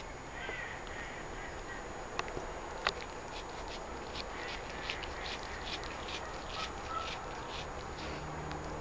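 Cat chewing cucumber: wet, crisp crunching clicks, a few single ones and then a quick run of them from about four seconds in.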